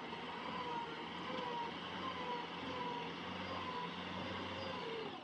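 Heavy diesel machinery engine running steadily, with a faint whine that wavers slightly up and down in pitch.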